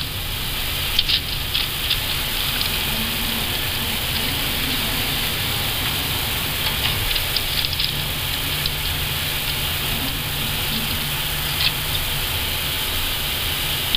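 Steady cockpit noise of an Airbus A320 taxiing: a constant airflow hiss over a low engine hum, with scattered light clicks.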